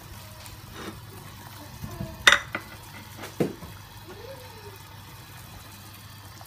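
Pork bone soup boiling in a stainless steel pot, with a sharp metallic clink a little over two seconds in and a softer knock about a second later.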